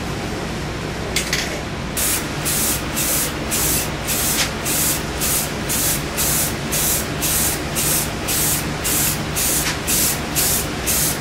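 Aerosol spray-paint can hissing in short quick bursts, about three a second, as a light coat of paint goes on in quick passes. One brief spray comes about a second in, then the rapid bursts start about two seconds in.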